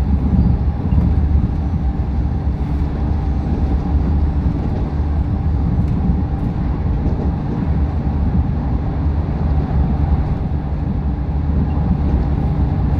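Busan Metro Line 4 rubber-tyred light-metro train running through a tunnel, heard from on board: a steady low rumble of the tyres on the concrete guideway with a faint steady higher tone over it.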